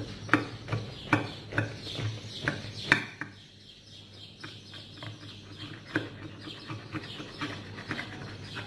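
A knife sawing through a crisp fried brik-pastry bourek, the thin fried pastry sheet crackling and crunching in quick sharp snaps for about three seconds, then with fainter scattered crackles.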